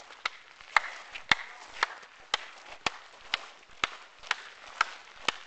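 Sharp, evenly spaced knocks or clicks, about two a second, each with a brief ring, like a steady beat being kept.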